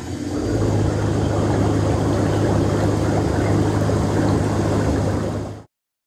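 MTI air bath running at reduced intensity: a steady blower hum with air bubbling through the bath water. It cuts off suddenly near the end.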